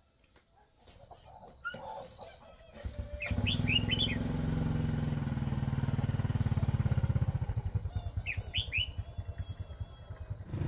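A small motorbike engine comes in about three seconds in, running as the bike pulls away, then fades as it rides off near the end. Short clusters of bird chirps sound twice over it.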